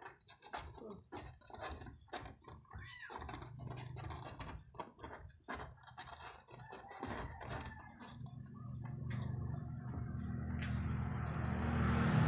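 Rustling and light clicks of a wipe being worked over a small kitten, with a brief high squeak about three seconds in. From about two-thirds through, a low steady rumble builds and grows louder.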